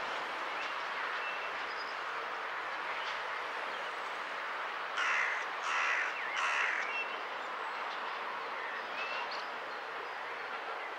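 A bird gives three loud calls in quick succession, about five seconds in, over a steady background hiss.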